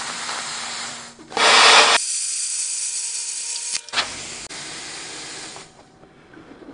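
Hand plasma cutter cutting through steel plate: a harsh, steady hiss, loudest for about half a second just before the cut ends. It is followed by a thinner hiss of air from the torch, a click, and a further hiss that stops shortly before the end. The cutter's tip, which the operator suspects is getting worn, left the cut a little crooked.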